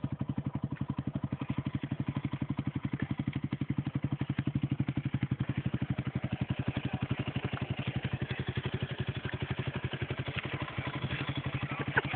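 Quad bike engine running at low revs, with a steady, rapid chugging pulse of roughly ten beats a second. A sharp knock comes near the end.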